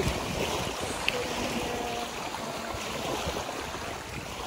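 Wind buffeting the microphone over small waves washing onto a pebbly beach.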